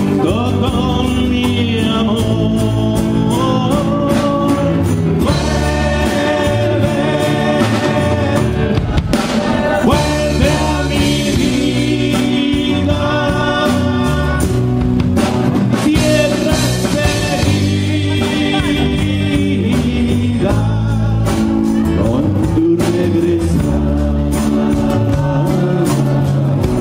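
Live band music: a male singer singing into a microphone over acoustic guitar, electric guitar, congas and drum kit.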